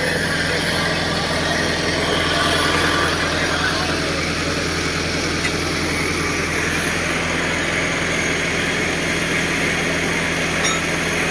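Tractor diesel engines running steadily at idle, an even low hum with no revving.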